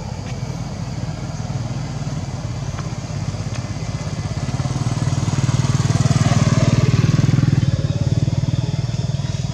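A motor vehicle's engine running steadily, growing louder to a peak about six to seven seconds in, then easing off.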